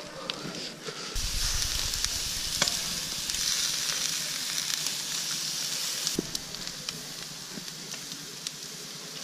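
Trout fillets sizzling on the hot grates of a gas grill, a steady hiss that grows louder about a second in and eases after about six seconds, with a few light ticks.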